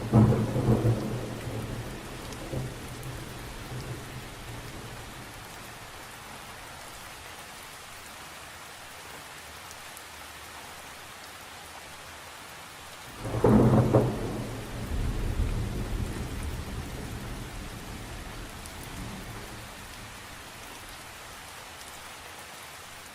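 Thunderstorm sound effect: steady rain falling, with a loud thunder rumble at the start that fades over a few seconds and a second loud thunderclap about 13 seconds in that rolls away slowly.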